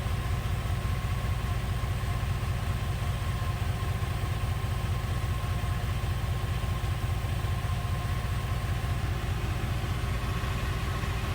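Dodge 5.2 V8 idling steadily with its engine-driven Sanden 605 six-cylinder onboard air compressor running, pumping a tire up. The drone is even, with a few steady tones above it, and does not change.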